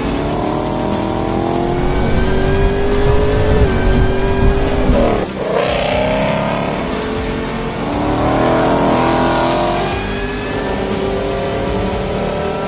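Supercharged V8 sports car engine revving hard and pulling up through the gears, its pitch climbing and dropping back at each shift, about four seconds in and again a little after five seconds, with a rush of noise just after the second drop.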